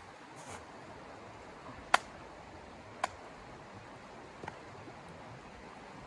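A river running steadily over its bed, with three sharp clicks: a loud one about two seconds in that rings briefly, a smaller one a second later, and a faint one near the middle.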